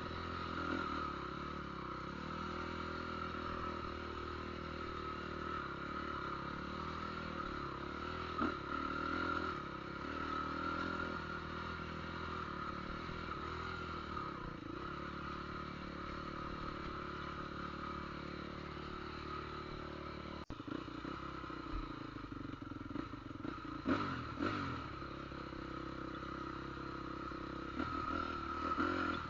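A motor running steadily; its note shifts suddenly about twenty seconds in, and a few knocks follow soon after.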